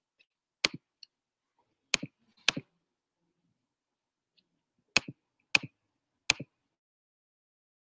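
Six sharp computer clicks at irregular intervals, each a press followed at once by a softer release tick, as someone clicks through windows on a computer.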